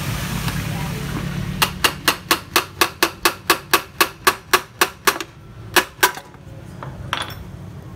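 A low steady hum, then a run of sharp, evenly spaced knocks, about four a second, beginning about a second and a half in and stopping after some three and a half seconds, with two more knocks shortly after.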